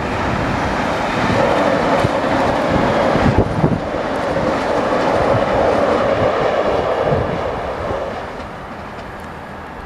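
An AGC regional railcar and an MI2N double-deck RER train running past together, a steady rumble of wheels on rail with a few low clacks over rail joints around the middle. The noise fades away after about eight seconds as the trains move off.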